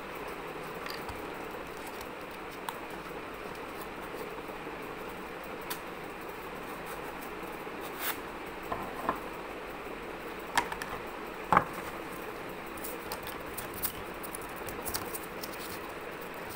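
Cardboard tubes being handled on a table: scattered light taps and clicks, a few louder ones between about eight and twelve seconds in, then a run of small ticks, over a steady background hiss.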